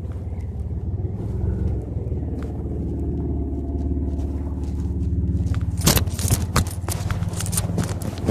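Car engine running, its pitch rising gradually as it revs up over a few seconds, likely a vehicle working to get out of deep snow. About six seconds in, a run of sharp cracks and scrapes joins it.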